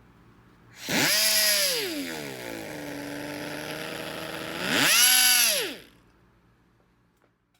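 Lih AIR-597 pneumatic swing-track grinder, air-driven at up to 28,000 rpm, spinning up with a rising whine and a hiss of air. Its pitch drops to a lower steady tone for about two seconds, rises back to full speed, then cuts off and winds down near the end.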